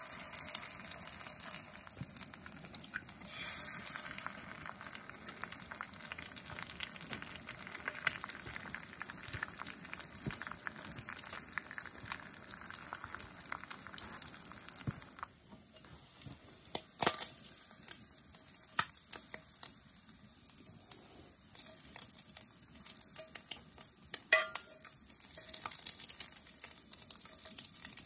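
Eggs frying in hot oil in a cast iron skillet: a steady, crackling sizzle. About halfway through, the sizzle drops off and the cooking continues more quietly, with a few sharp clicks and scrapes against the pan.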